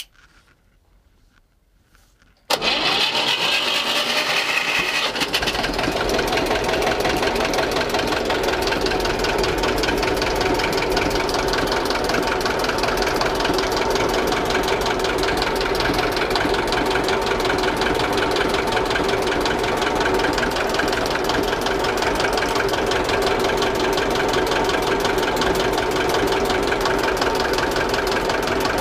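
Old two-cylinder marine diesel with a heavy flywheel starting. After about two and a half seconds of near quiet it suddenly fires and comes in loud, with a high whine for the first couple of seconds. It then settles into steady, rapidly clattering running.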